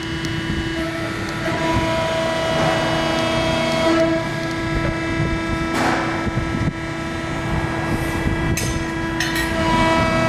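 The 15 hp hydraulic pump unit of a Cincinnati 135CBII CNC hydraulic press brake running with a steady whine made of several tones. A short hiss comes about six seconds in, and a few sharp clicks follow shortly before the end.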